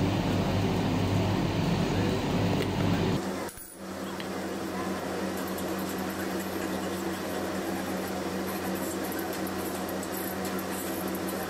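A steady low hum that changes abruptly a little over three seconds in, then a silicone spatula mixing mashed potato in a stainless steel bowl, with light scraping against the metal.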